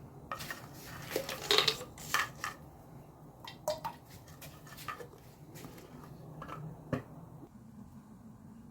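Kitchenware clinking and knocking: a quick run of utensil-on-dish clinks in the first couple of seconds, then a few scattered single clinks, over a faint steady low hum.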